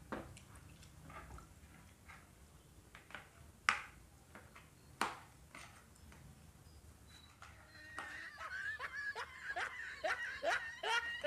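Scattered lip smacks and clicks of eating by hand, then from about eight seconds in a quick run of high-pitched giggling.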